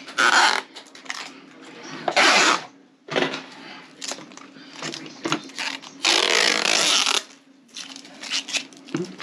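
Handling noises while a robot vacuum and its charging dock are set up: several short bursts of rustling and scraping, one longer about six seconds in, over a steady low hum.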